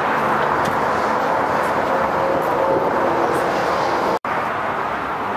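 Steady outdoor background noise with a brief dropout about four seconds in.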